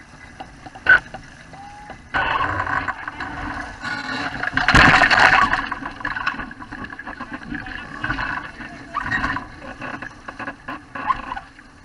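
Water rushing and splashing along the hull of a Wayfarer sailing dinghy under way, with wind noise. A sharp click comes about a second in, the rush starts suddenly about two seconds in and is loudest around five seconds, then comes and goes in surges.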